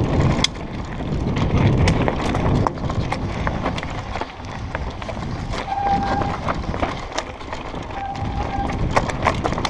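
Mountain bike running fast down a rough forest trail: tyres crunching over loose stones and leaves, with a steady rumble and many sharp clicks and rattles from the bike over the bumps. Two short squeals about six and eight seconds in.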